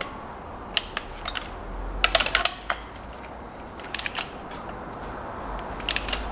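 Ratchet of a torque wrench set to 20 N·m clicking as a spark plug is tightened, in several short runs of sharp metallic clicks.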